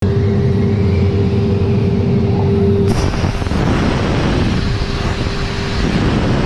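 Masterwood Project 415 CNC machining centre running, with a steady whine over a low machine rumble. About three seconds in, a louder rushing noise starts and carries on.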